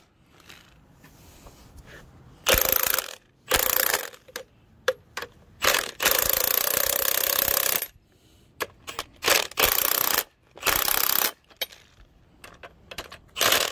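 Cordless impact wrench hammering on the threaded rods of a coil-spring compressor, compressing a strut's coil spring. It runs in about six short bursts with small clicks between them, and the longest burst lasts about two seconds, about six seconds in.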